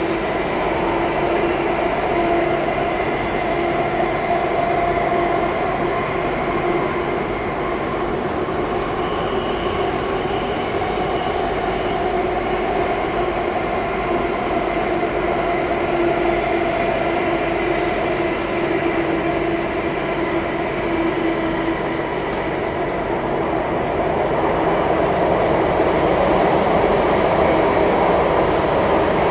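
Singapore MRT Circle Line train running through a tunnel between stations, heard from inside the carriage: a steady rumble of wheels on rail with a hum, growing a little louder in the last few seconds.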